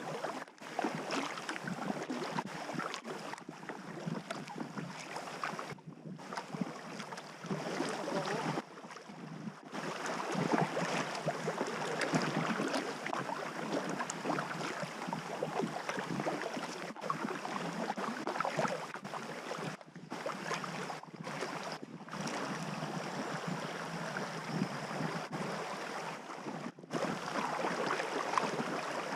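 River water rushing and splashing around a packraft running down a fast taiga river. The sound is steady, breaking off briefly several times.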